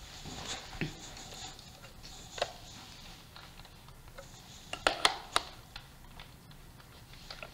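Faint rustling and scattered knocks and clicks of a person moving about a small room, the loudest a quick cluster of three knocks about five seconds in.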